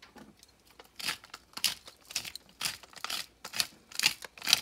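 Hand pepper grinder being twisted over a dish of boiled potatoes, grinding black pepper: a gritty crackle with each turn, about two to three turns a second, starting about a second in.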